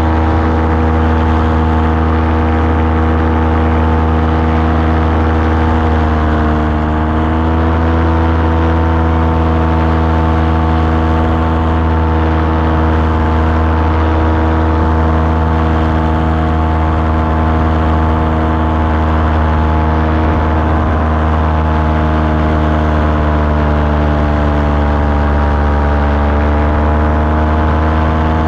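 Small aircraft engine and propeller running steadily in flight, with a strong low drone. Its pitch dips slightly about seven seconds in and again near the end.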